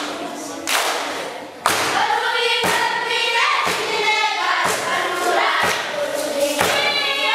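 Children's choir singing together with a thudding beat about once a second. The singing comes in suddenly a little under two seconds in.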